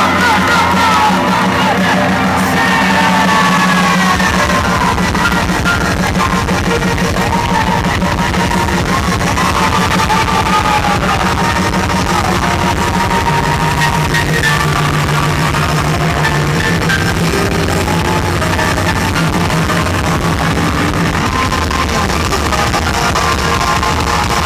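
Live rock band playing loudly, with electric guitars over a steady beat, recorded from within the audience. The crowd yells over the music in the first couple of seconds.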